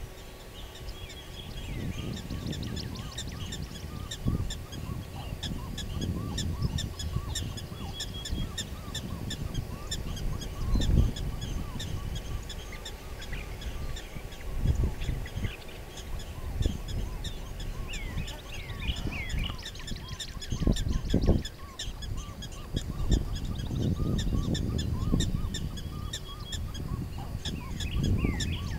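Prairie-dog-town ambience: many short high chirps and calls from birds and black-tailed prairie dogs, with a few quick falling calls about two-thirds of the way in and again near the end, over gusts of wind rumbling on the microphone.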